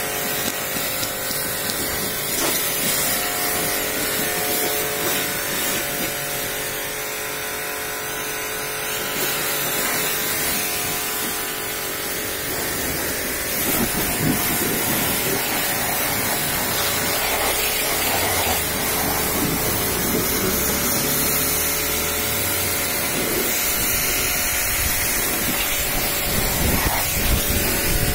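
Pressure washer running steadily, its high-pressure water jet hissing as it sprays against a car's body panels and wheel arch, over a constant motor hum.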